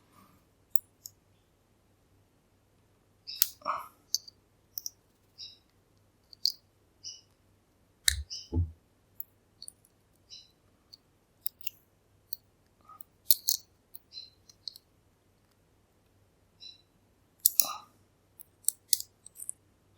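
Small metal tools clicking and tinking against a lock cylinder in scattered bursts, many clicks with a short high ring, while the retaining C-clip is worked at without proper clip pliers. A single dull knock about eight seconds in.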